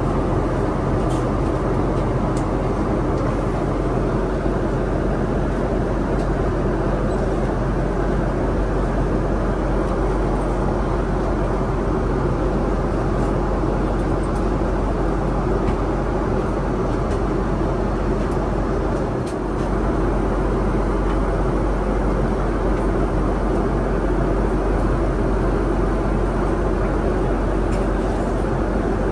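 Steady cabin noise of a Boeing 777-200ER airliner in flight: a constant rushing drone of airflow and engines, dipping slightly for a moment about two-thirds of the way through.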